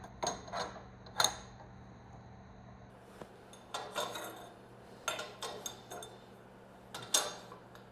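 Lengths of 3/4-inch steel tubing being set into a fixture on a steel welding table, clinking and knocking against the table top and stops in short clusters of light metallic taps.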